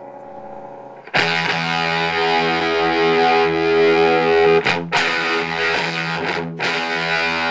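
Electric guitar played through a home-built Green Ringer octave-up fuzz pedal, heavily distorted. A quieter held note is followed about a second in by a loud, sustained chord, which is struck again twice, near five seconds and about six and a half seconds in.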